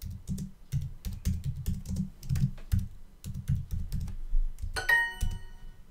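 Typing on a computer keyboard: a quick, irregular run of key clicks. Near the end comes a short, bright app chime, Duolingo's sound for an answer marked correct.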